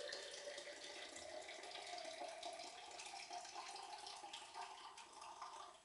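Water running from the tap of a ceramic bottled-water crock dispenser into a drinking glass, its pitch slowly rising as the glass fills. It cuts off near the end as the tap is closed.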